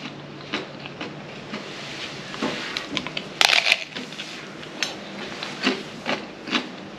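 Crisp tostada shell bitten into, a burst of loud crunching about three and a half seconds in, with scattered smaller crunches and clicks of chewing and handling around it.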